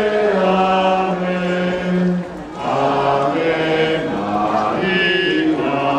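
A group of voices singing a slow religious chant together in long held notes, with a short break between phrases about two and a half seconds in.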